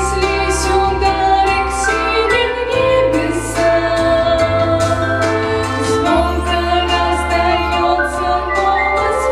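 Women's voices singing a slow Russian song over instrumental accompaniment, with long held bass notes that change every few seconds.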